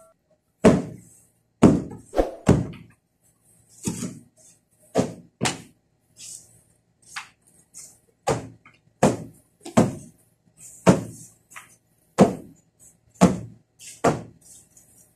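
Series of dull thumps, irregular at roughly one a second with some in quick pairs: fabric floor-sofa cushions being beaten and knocked about to get the dust out of them.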